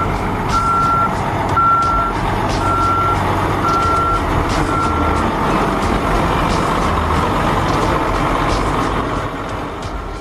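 A heavy construction vehicle's backup alarm beeping steadily, about once a second, over its running engine. The beeping stops about five seconds in, while the engine keeps running.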